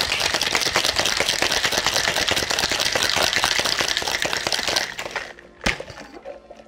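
Ice cubes rattling hard and fast in a cocktail shaker being shaken vigorously. The shaking stops about five seconds in, followed by a single sharp knock.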